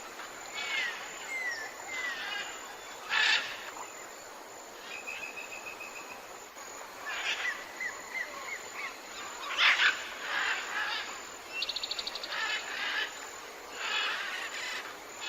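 Forest birds calling over a steady background hiss: several different short calls, including small downward-slurred whistles, a held note about five seconds in and a fast trill near twelve seconds, with the loudest call about ten seconds in.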